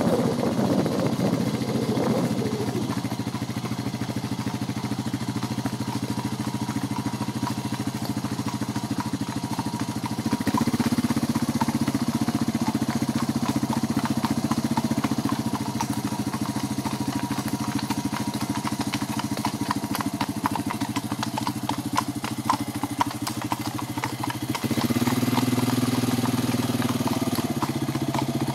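A vehicle engine running steadily at low speed, growing louder about ten seconds in and again near the end, with horses' hooves clopping on tarmac.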